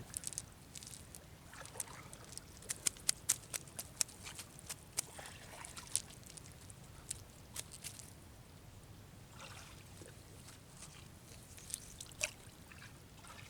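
Water trickling and sloshing, with a scatter of sharp clicks and taps, several close together in the first half.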